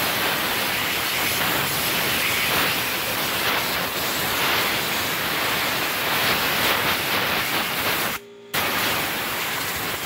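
Compressed-air blow gun at about 90 PSI blasting into a window air conditioner's coil and blower wheel, a loud steady hiss that cuts out briefly about eight seconds in and then resumes. The air is blowing out grime loosened by the sprayed-on cleaner.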